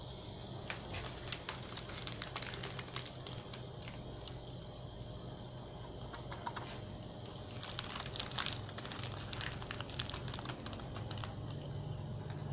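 A small paper packet of baking soda crinkling as it is handled and tipped into the cells of a lead-acid UPS battery. Scattered small clicks and crackles come thickest between about 8 and 10 seconds in.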